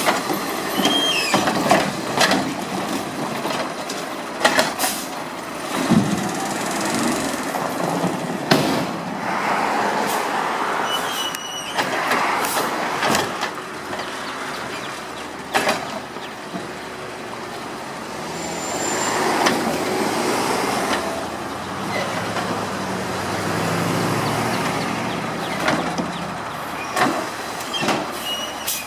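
Garbage truck working: a running engine with repeated sharp clanks and bangs, and a few swells of louder noise.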